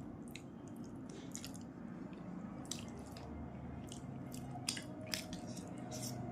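Close-up wet eating sounds of rice and fish curry being chewed, with scattered soft smacking and squishing clicks and a couple of sharper clicks near the end.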